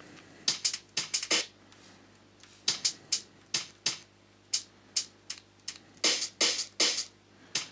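Single slices of a sliced 175 bpm breakbeat sample triggered one at a time: short separate drum hits, a kick, snares and cymbal-like hits, with small gaps between them.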